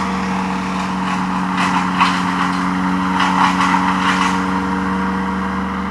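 The tree crew's machinery: a large engine running at a steady pitch. From about one and a half to four and a half seconds in, an irregular crackling clatter rides over it.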